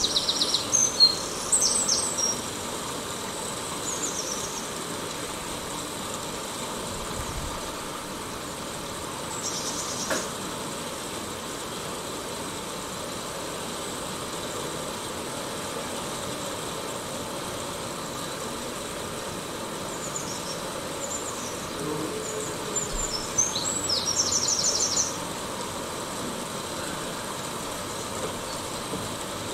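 Steady rushing noise of a bicycle rolling along a trail, with birds chirping near the start, around ten seconds in, and in a busier run of calls between about twenty and twenty-five seconds.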